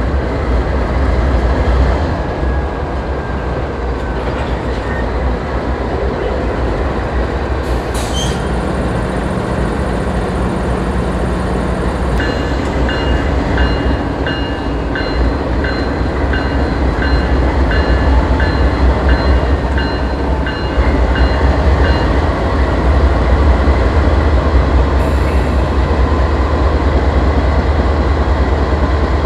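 Canadian Pacific GE diesel locomotives, an AC4400CWM and an ES44AC, running as they creep past, with a heavy low engine rumble throughout. A high tone repeats about one and a half times a second for roughly ten seconds in the middle.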